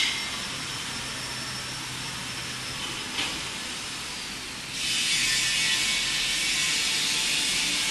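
Steady hiss of workshop noise with two sharp clicks, then about five seconds in a louder, higher hiss sets in and holds.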